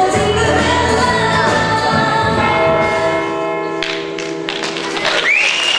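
Pop dance song with singing, played back through hall speakers, stops on a held chord about three and a half seconds in. Near the end a single high tone swells in and holds.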